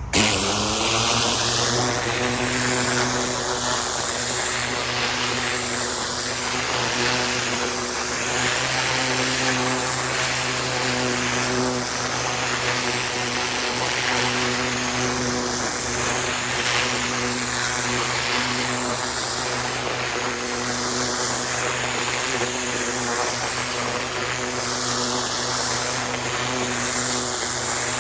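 Pressure washer with an oscillating tip cutting in suddenly, its motor settling under load, then running steadily while the spray hisses loudly into the soil, swelling and dipping about every two seconds.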